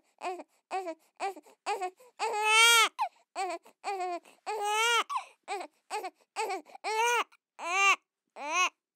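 A baby crying: short, rapid sobbing cries, a few each second, broken by three longer wails, the loudest about two and a half seconds in.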